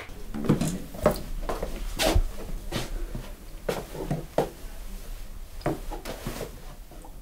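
Irregular light footsteps and soft knocks as someone moves across a small room and handles a wooden wardrobe door.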